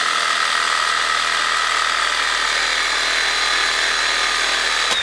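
Bosch reciprocating saw with a thick-metal-cutting blade sawing through a steel leaf-spring U-bolt, running at a steady speed and stopping right at the end.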